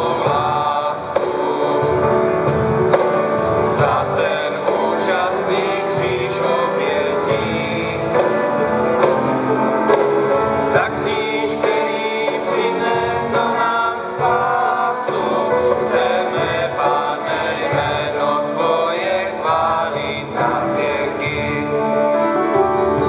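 Mixed choir singing a worship song, accompanied by acoustic guitars with a steady beat of strums or drum strokes.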